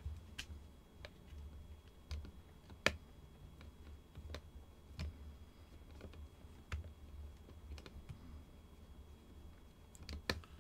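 Small, irregular metallic clicks and ticks of a screwdriver turning a seized steel screw out of a brass fitting, over a faint low hum.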